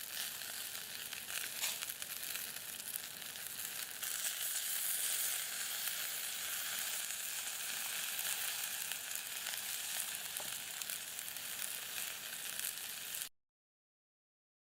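Food frying in a pan: a steady sizzle with small crackles and pops. It cuts off abruptly near the end.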